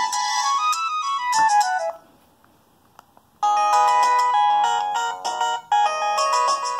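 Preloaded ringtones on an LG UX210 phone: one electronic melody ends with a quick falling run of notes about two seconds in. After about a second and a half of near silence and a faint click, a different, busier ringtone melody starts.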